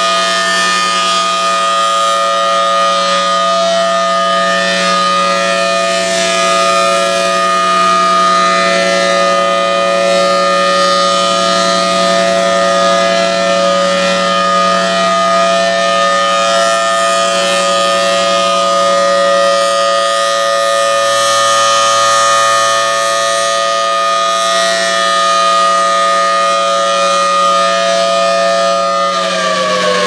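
Federal Signal Thunderbolt 1003 rotating outdoor warning siren sounding its steady Alert tone, loud and held at one pitch while the horn turns. Near the end the pitch starts to fall as the siren begins winding down.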